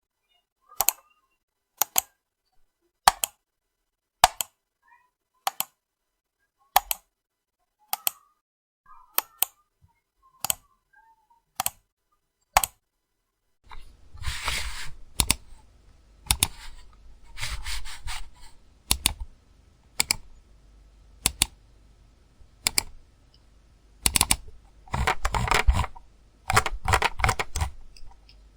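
Computer mouse button clicks: single sharp clicks about once a second, then, about halfway through, bursts of rapid clicking over a low background hum.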